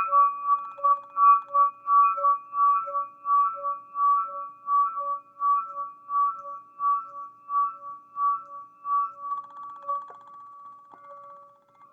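Crystal singing pyramid ringing with steady, sustained tones that waver in loudness about twice a second, growing fainter about three-quarters of the way through.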